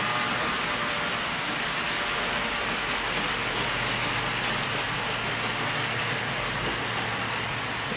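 HO-scale model freight train running on the layout track: a steady rolling hiss of wheels on rail. A faint whine from the model locomotive's motor fades out in the first couple of seconds.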